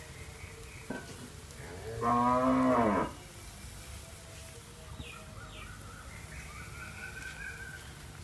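A cow moos once, a single call of about a second that drops slightly in pitch as it ends, about two seconds in, over a low steady background.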